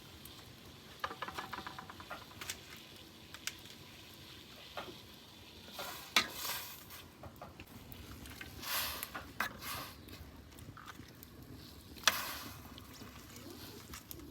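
Cooking sounds: a utensil stirring and scraping in a pot, with light clicks and a few short hissing bursts.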